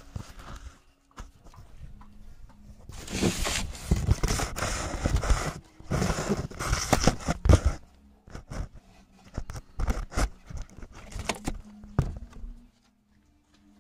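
Handling noise on a phone's microphone: rubbing, scraping and knocking as the phone is held and moved about close to the body. The two longest, loudest stretches of rustling come in the first half, then shorter scrapes and knocks, and it stops near the end.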